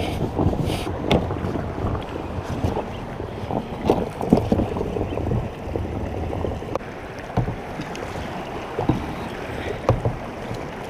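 A kayak moving through rushing creek water, with steady water noise and irregular knocks and splashes against the hull.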